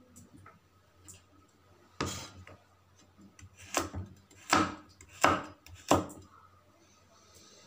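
Kitchen knife chopping carrot on a wooden cutting board: sharp knife-on-board strikes, one about two seconds in, then four louder ones in quick succession from the middle on.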